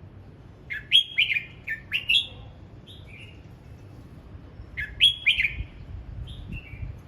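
Red-whiskered bulbul singing: two bursts of quick, sliding whistled notes, about a second in and again about five seconds in, with a few softer single notes between and after.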